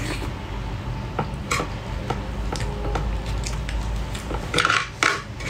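Close-miked eating of crab and rice: scattered light clicks and scrapes of a utensil against a bamboo tray, with chewing mouth sounds. There are two louder bursts near the end.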